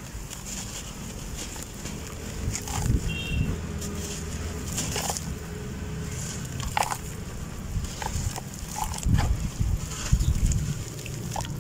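Hands crumbling soft, dusty chunks of red dirt into a basin of water, with irregular crackling breaks and soft thumps as pieces fall in, loudest about three seconds in and again about nine to ten seconds in.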